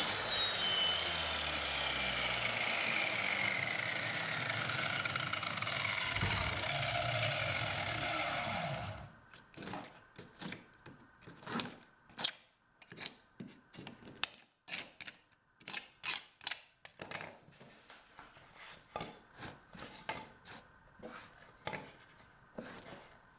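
Undercut jamb saw running against a metal door frame, its whine falling steadily in pitch for about nine seconds before it cuts off suddenly. Scattered light clicks and knocks follow.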